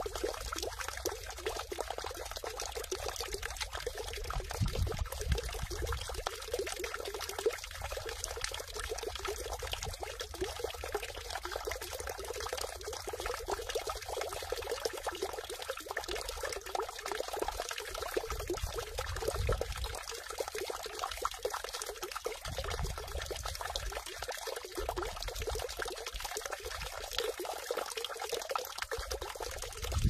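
Water steadily pouring and splashing into a round stone water basin (sugwak, a stone 'heobeok'). A low rumble comes and goes underneath.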